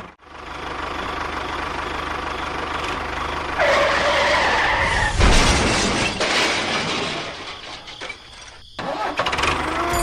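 Engine-like running of small machines, with abrupt changes between takes. A whine rises up for about a second and a half around four seconds in, and is followed by a louder rough stretch. The sound drops and briefly breaks off near the end.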